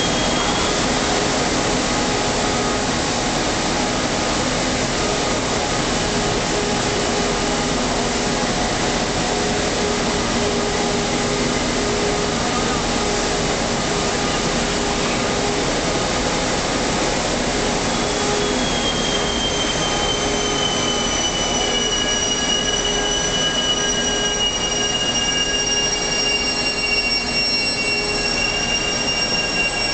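Steel-pipe polyethylene coating line running: the extruders and the pipe turning on its roller conveyor make a loud, steady machine noise with several steady hums. About two-thirds of the way through, a high whine sets in and slowly falls in pitch.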